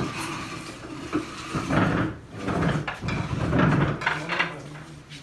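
People moving about an office: wooden knocks and clacks as office chairs are shifted, mixed with indistinct voices.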